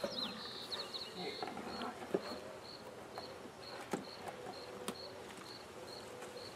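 Honey bees buzzing faintly, with a high chirp repeating about twice a second and a few sharp clicks from equipment being handled.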